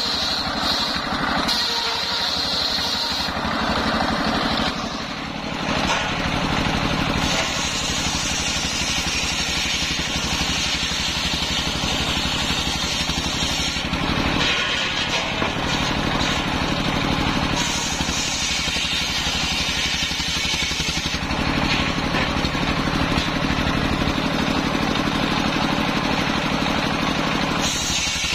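Stationary diesel engine running steadily under load, belt-driving a large circular saw; the saw rips through waru (sea hibiscus) logs in several cuts, its higher ripping noise rising during each cut and falling back between them.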